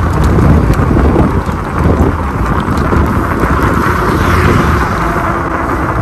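Wind buffeting the microphone with road rumble from a bike in motion: a loud, steady rushing noise.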